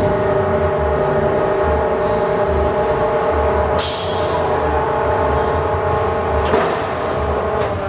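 Siber Hegner bed-type variable-speed vertical milling machine running, its drive giving a steady whine with an uneven low pulsing underneath, and two short clicks about four and six and a half seconds in.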